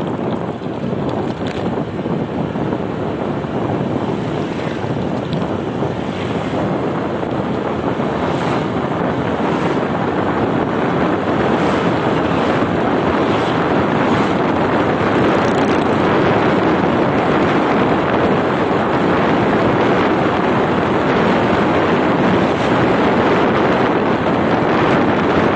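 Wind rushing over the microphone of a moving motorcycle, a steady loud rush with the road and engine noise buried beneath it, growing gradually louder.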